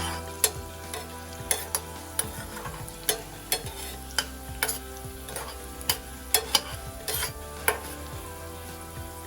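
A cooking utensil stirring in a pan, scraping and knocking against the metal in about fifteen irregular sharp clicks, over a faint sizzle.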